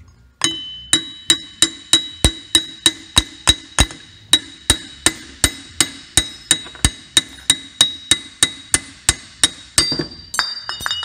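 Hammer blows, about three a second, driving a hub flange off a golf cart rear axle shaft clamped in a vise, each strike ringing sharply off the metal. Near the end the blows stop and loose metal parts clink as the flange comes free.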